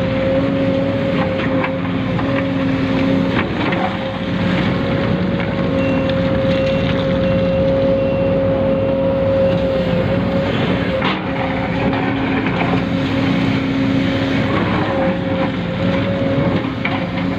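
Small electric motors and gearing of radio-controlled models whining steadily at a constant pitch, with scattered light clicks and knocks.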